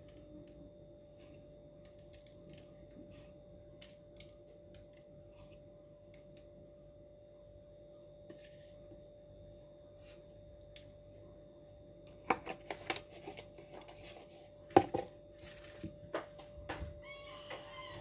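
A steady faint hum, then, from about two-thirds of the way in, a run of sharp clicks and knocks of objects being handled, the loudest a little before the end, followed by a short crinkling rasp near the end.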